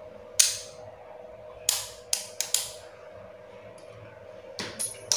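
Sharp metallic clicks and knocks from Brembo motorcycle brake master cylinder levers being picked up, handled and set down on a table, about seven irregular taps. A faint steady hum runs underneath.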